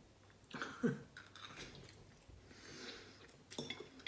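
Eating ramen noodles: slurping and chewing, with a few short clicks of the fork and spoon against the bowl.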